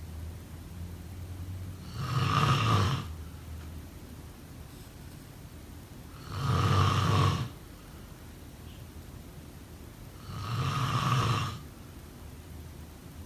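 A person snoring in slow, regular breaths: three loud snores, about four seconds apart and each lasting about a second, with a softer low sound between them.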